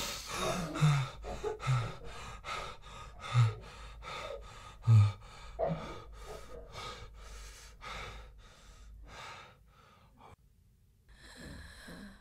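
A person breathing hard and fast, about two breaths a second, with several louder voiced gasps among them in the first five seconds. The breathing fades away about ten seconds in.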